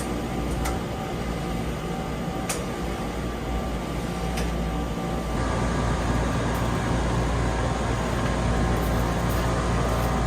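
Chiller running after a condenser fan motor replacement: a steady mechanical whir with a low hum, rising slightly in level about halfway through, with a few sharp clicks in the first half.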